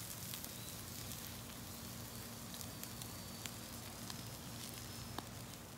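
Steaks sizzling on a grill grate over an open fire pit: a steady hiss, with a few sharp crackling pops from the fire.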